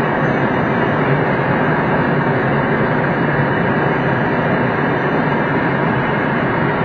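Steady rush of airflow over a glider's canopy, heard from inside the cockpit.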